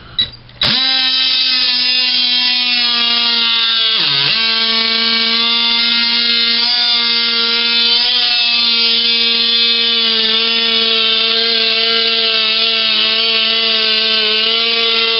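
Ryobi P340 18-volt oscillating multi-tool switched on with a click and running at a steady buzz, its blade cutting into the glue behind a pressed-wood backsplash. About four seconds in the pitch dips sharply and recovers as the blade bogs down under load.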